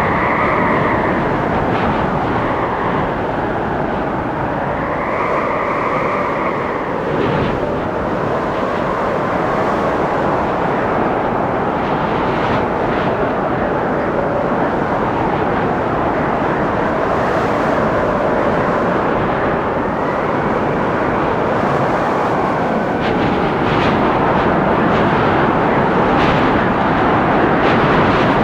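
Windstorm gusting through forest trees: a steady rushing noise with howling tones that swell and fade, about a second in, around five to six seconds in and again past twenty seconds, and a few brief knocks.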